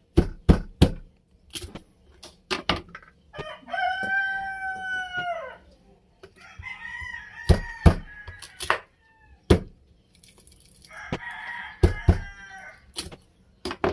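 A kitchen knife chopping a corn cob into pieces on a wooden board: sharp knocks at uneven intervals. A rooster crows once, long, about four seconds in, with more fowl calls later.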